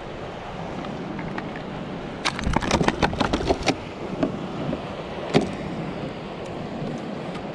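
Steady wind noise on the microphone over lapping water, broken about two seconds in by a quick run of sharp knocks and rattles lasting about a second and a half, then one more knock a couple of seconds later.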